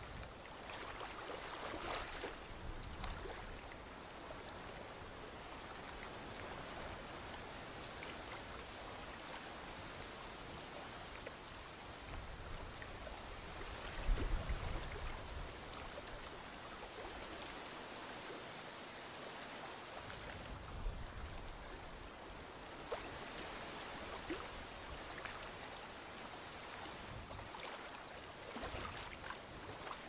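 Small wind-driven waves on a river lapping and splashing at the water's edge. Gusts of wind rumble on the microphone now and then, the strongest about halfway through.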